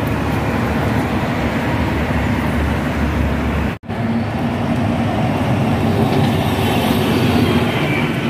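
A bus running, with steady engine and road noise. There is a brief dropout almost four seconds in, after which the noise carries on with a steady hum.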